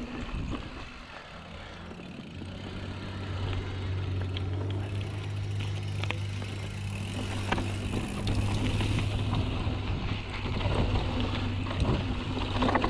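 Mountain bike rolling down a dry dirt trail and over rock: tyre noise on the ground, a steady hum from the moving bike that sets in about two seconds in, and a few sharp knocks and rattles from the bike over rough ground.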